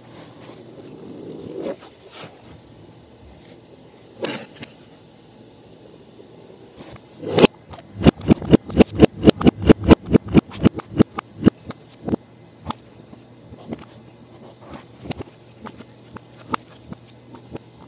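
Hands handling Play-Doh and its tub on a tabletop: soft scraping and rubbing, then a quick run of about twenty taps, some five a second, about halfway through, and scattered softer taps after.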